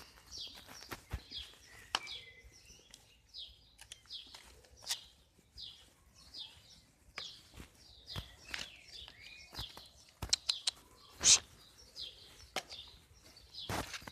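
A small bird chirping over and over, short high falling chirps about twice a second, with scattered clicks and knocks and one louder knock late on.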